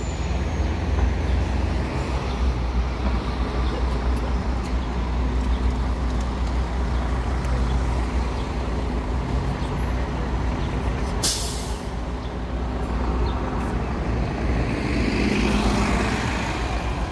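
Diesel transit buses and traffic running as a steady low engine rumble. A short, sharp air-brake hiss comes about eleven seconds in, and near the end a bus swells up as it passes close by.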